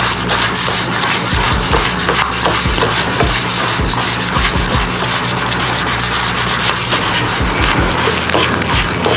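Broken ice fishing rod tip rubbed back and forth on a sheet of fine sandpaper, a continuous gritty scratching as old epoxy is sanded off and the end of the blank is squared. Soft low knocks come now and then.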